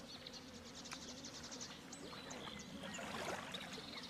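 Faint lakeshore sound: water lapping and sloshing, swelling briefly about three seconds in, with small birds chirping and a quick high trill.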